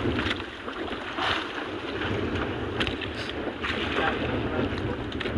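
Wind buffeting the microphone over water sloshing and splashing against a small boat's hull at sea, with brief splashes every second or so.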